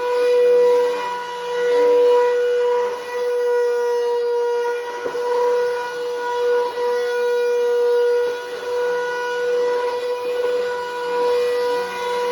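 Bissell Powerforce Helix Turbo upright vacuum running with a loud, steady high-pitched whine, its level rising and falling every second or two. The whine is exceedingly loud, a state the owner puts down to the machine sitting unused in a dusty garage, and he means to take it apart and clean it.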